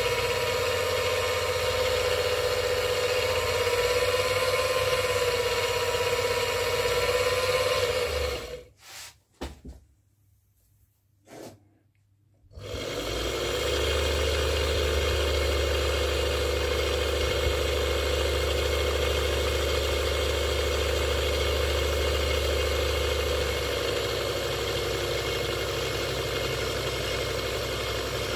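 Präzima Z5 watchmaker's lathe running under its electric drive, a steady mechanical whine. It stops about a third of the way in, and after a few seconds of near silence it runs again with a deeper steady hum.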